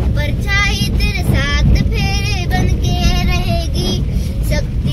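A girl singing a film song without accompaniment, holding long wavering notes. Under it runs the steady low rumble of the car's road and engine noise inside the cabin.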